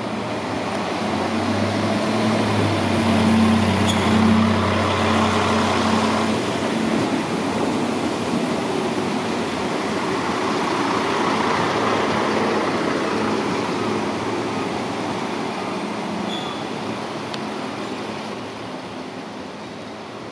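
DB class 648 (Alstom Coradia LINT 41) diesel multiple unit pulling out. Its diesel engines run up with a steady low drone for the first six seconds or so, then broad engine and running noise swells again and fades as the railcar moves off.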